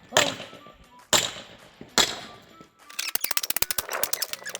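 Pallet wood being knocked apart for firewood: three sharp wooden knocks about a second apart, each ringing briefly, then a quick clatter of clicks near the end.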